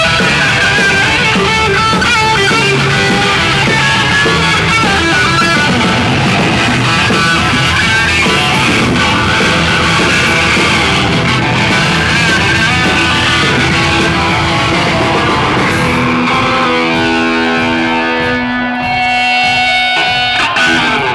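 Live hard rock played loud by a full band, with a lead electric guitar playing bending notes over bass and drums. Near the end the drums thin out and held guitar notes ring on.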